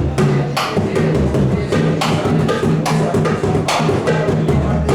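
Live pagode jam: electric bass, surdo drum and acoustic guitar playing together in a steady, continuous rhythm, with repeated percussive strikes over sustained bass notes.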